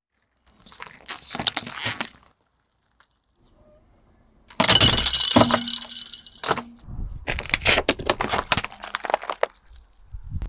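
Brittle objects crunching and breaking under a car's tyres: three bursts of rapid cracking and snapping. The middle burst is the loudest and has a steady tone running through part of it.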